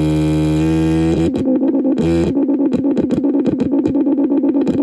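Dark Matter Ray noise synthesizer being played by turning its knobs: a loud, buzzy drone for about the first second, then a fast, irregular stuttering crackle over a steady hum, with a short return of the drone about two seconds in.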